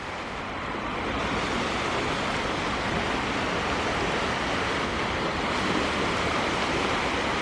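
Steady rushing noise of sea surf and wind at the shore, building over the first second and then holding even.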